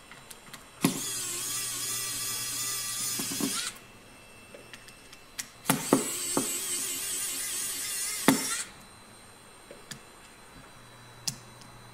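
Small electric screwdriver running twice, about three seconds each time with a click at the start, as it backs out the top-cover screws of a Maxtor IDE hard drive.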